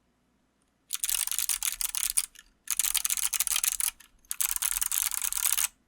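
Godspeed75 mechanical keyboard with Kailh Box Jade clicky switches, typed on fast in three bursts of rapid crisp clicks, each over a second long, with short pauses between.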